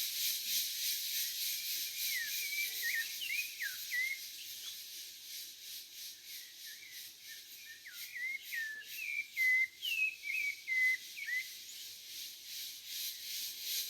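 A sabiá thrush singing phrases of short, gliding whistled notes, in two bursts of song, over a steady, pulsing high hiss of cicadas.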